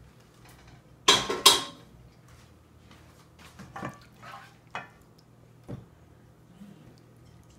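Dishes and metal cutlery clattering: a loud double clash about a second in, then a few lighter single clinks.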